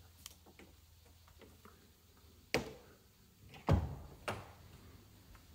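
Three sharp knocks, about 2.6, 3.7 and 4.3 seconds in; the middle one is the loudest and has a low thud under it.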